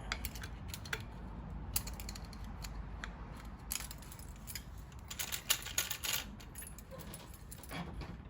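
Small steel valve keepers clicking and tinkling against a magnet and the compressed valve spring as they are worked loose from the valve stem. The clicks are scattered, with a quick run of them a few seconds in.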